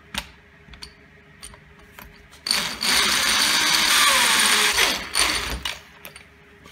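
Black & Decker electric drill boring a hole through a fibreboard disc: a few light knocks as it is set in place, then the drill runs under load for about two and a half seconds and winds down as the trigger is released.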